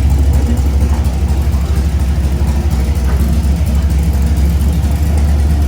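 Car engine idling loudly with a choppy, lopey rumble through an open exhaust.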